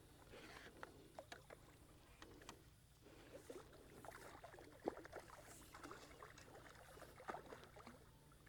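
Faint, irregular splashing and sloshing of water as a small hooked fish is drawn in at the bank, with a few sharp clicks and knocks, the loudest about five seconds in.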